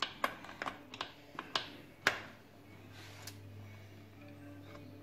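Light clicks and knocks, about seven in the first two seconds and one more later, as the side profile rail and trim of a Neff Slide and Hide oven door are worked loose by hand, over a low steady hum.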